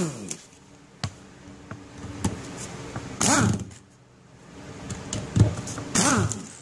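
Pneumatic air tool driving out the Phillips screws of an outboard's ignition plate in short bursts, each one winding down in pitch with a hiss of air as the trigger is let go. The bursts come three times, one at the start, one about three seconds in and one about six seconds in, with a few sharp clicks between them.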